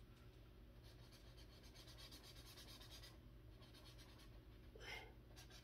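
Faint scratching of a felt-tip marker stroking back and forth over a colouring-book page, with one brief soft sound about five seconds in.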